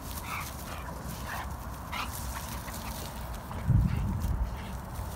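A dog giving a few short high whines or yips while playing. About three and a half seconds in there is a low rumble, the loudest sound here.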